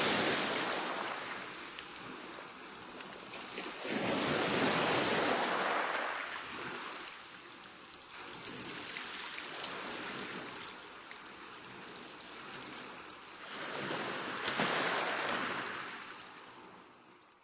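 Rough sea: waves surging and breaking in big swells about every four to five seconds, each a rush of water that rises and ebbs, the sound fading out near the end.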